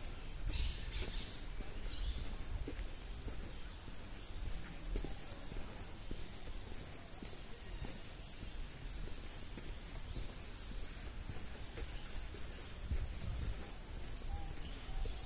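Insect chorus in bushland: a continuous, even, high-pitched shrill drone that gets a little louder near the end.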